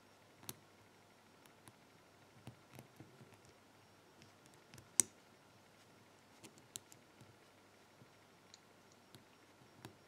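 Faint, irregular small metallic clicks of a thin lock pick and tension wrench working the pins in a small brass padlock's narrow paracentric keyway, with one louder click about halfway through.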